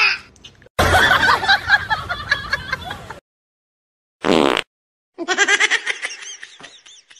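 A person giggling and laughing in quick repeated bursts, broken by short silences, with a brief high-pitched sound about four seconds in.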